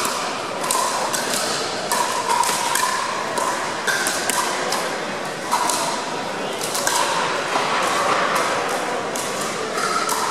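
Pickleball paddles striking a hard plastic pickleball, and the ball bouncing on the gym floor: repeated sharp pops and taps throughout, echoing in a large hall.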